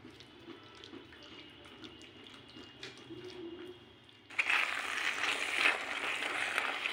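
Thick sauce sizzling and bubbling in a pan while a spatula stirs it. Faint light scraping at first, then about four seconds in the sizzling comes in suddenly much louder.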